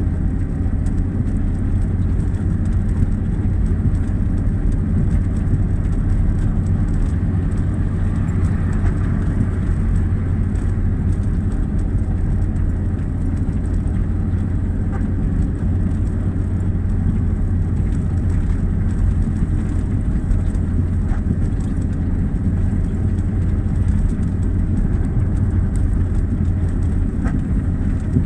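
An engine running steadily at constant speed, a low even hum with no revving, and a few faint clicks over it.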